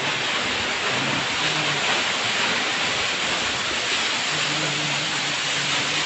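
Steady rushing roar of a waterfall, falling water splashing onto the rocks below.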